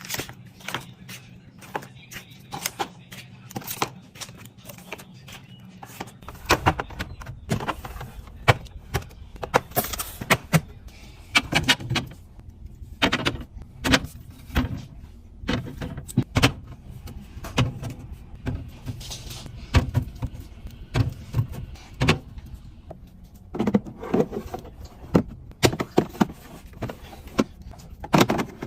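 Repeated clacks, taps and knocks of plastic containers, lids and bottles being handled and set down while a refrigerator is restocked, a few strikes a second. A low hum sits underneath from about six seconds in.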